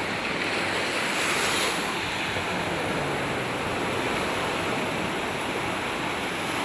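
Ocean surf washing onto the beach: a steady rush of breaking waves, swelling slightly about a second in.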